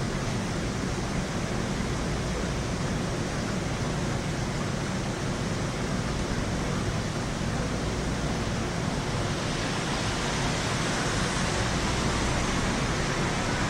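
Heavy rain pouring steadily during a thunderstorm, growing slightly louder near the end.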